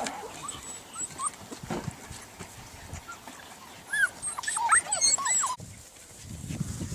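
A litter of puppies whining and yipping in short, high, rising-and-falling calls, thickest about four to five seconds in.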